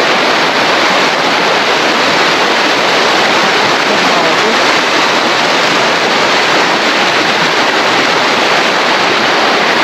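River water rushing past in a strong current, a loud, steady rush with no letup.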